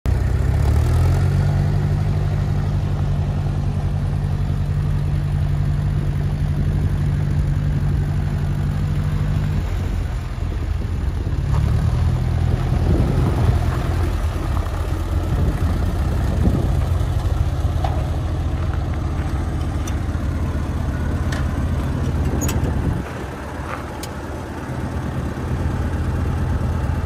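1963 John Deere 1010RU tractor's four-cylinder engine running as the tractor is driven. It holds steady at first, its pitch shifts and wavers in the middle, then it settles again, a little quieter near the end.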